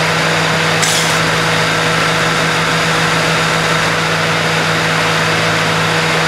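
2003 Ford Mustang GT's 4.6-litre V8 idling steadily while the newly replaced AC compressor clutch is tested, engaging and spinning the compressor. There is a short hiss about a second in.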